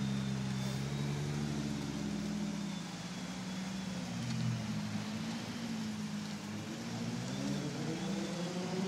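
Nissan GT-R R35's twin-turbo 3.8-litre V6 running at low revs as the car reverses out and creeps past. The engine note rises near the end as it moves off.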